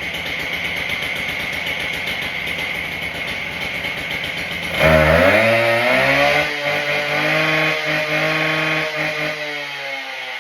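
Husqvarna K770 concrete saw's two-stroke engine idling after being started, then revved up sharply about halfway through. The pitch rises and holds high, then eases off near the end.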